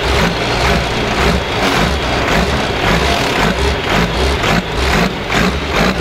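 Tractor diesel engines running, with a regular low beat pulsing about twice a second over them.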